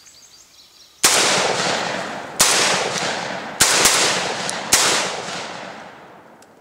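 Derya Lion Trap semi-automatic 12-gauge shotgun firing light 1 1/8 oz target loads: five shots in under four seconds, two of them in quick succession. Each shot trails off in a long echo.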